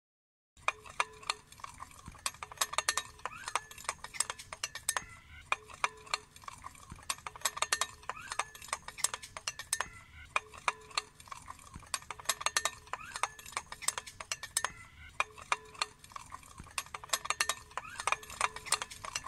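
A metal spoon beating raw eggs in a ceramic bowl: rapid, steady clinks and taps of the spoon against the bowl, starting about half a second in.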